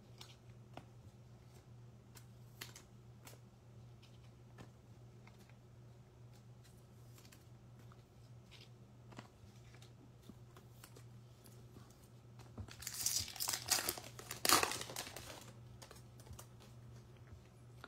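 Foil wrapper of a baseball trading-card pack being torn open and crinkled by hand, loudest in two bursts about thirteen to fifteen seconds in. Before that there is only a steady low hum with a few faint clicks.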